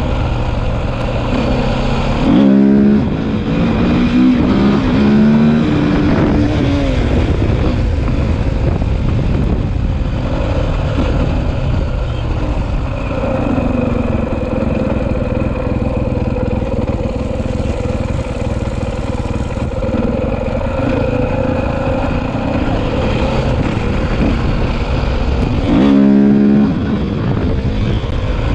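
KTM 450 dirt bike's single-cylinder four-stroke engine running under way, its pitch rising and falling as it is ridden. It gives a short, louder burst of revs about two and a half seconds in and again near the end.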